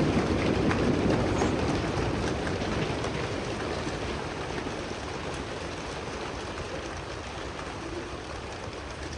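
A large group of singers and audience members making rain sounds together, a dense patter like rainfall that slowly dies away.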